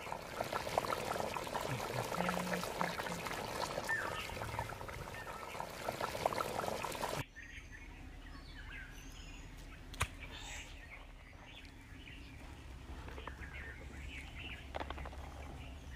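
Chicken curry boiling in a clay pot, a dense bubbling crackle of popping bubbles that stops abruptly about seven seconds in. After that, a quieter outdoor background with short bird chirps and one sharp click.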